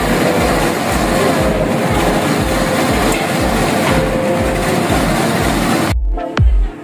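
Background electronic dance music with a steady beat, about two thumps a second, under a loud dense rumbling noise. The noise cuts off suddenly near the end, leaving the music alone.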